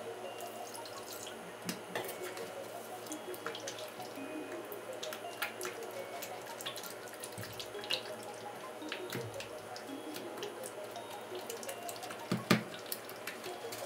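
Soft, wet stirring and squelching of a thick cream-cheese mixture in a plastic bowl as gelatin-milk is folded in, with many small clicks of the utensil and a louder knock near the end.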